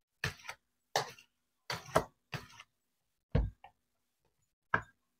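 Short taps and rubbing scrapes of hands working a tempered-glass screen protector against a phone's glass screen, about eight in a few seconds, the loudest near two seconds in.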